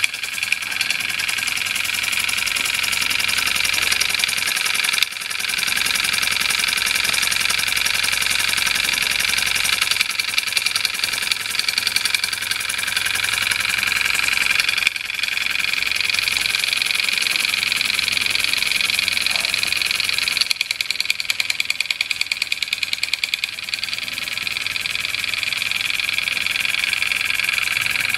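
Gas-fired Cyldon 13-3 model steam engine running fast: a rapid, even patter of exhaust beats over a steady hiss, dipping briefly a few times.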